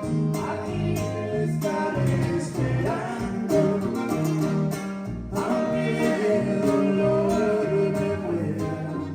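Background music: a Latin-style song with acoustic guitars and long held melody notes.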